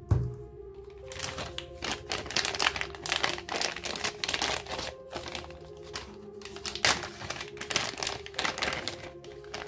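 Black plastic pouch crinkling in a quick, irregular run of crackles as it is handled and pulled open.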